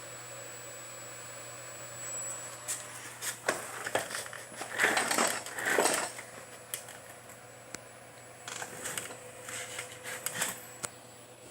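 Irregular clicks and knocks of hard objects being handled, with two louder scraping rustles about five and six seconds in, over a steady electrical hum and faint high whine.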